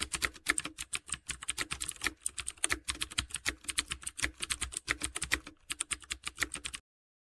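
Computer keyboard typing sound effect: a rapid, steady run of keystroke clicks that stops abruptly near the end.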